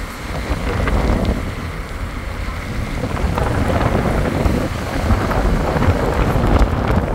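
Loud, uneven wind buffeting on the microphone of a moving car, a gusty low rumble over the car's road noise.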